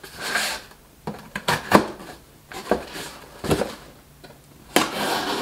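Cardboard shipping box being cut open with a knife: the blade slicing and scraping along the packing tape, with sharp knocks and scrapes against the cardboard and a longer ripping hiss near the end.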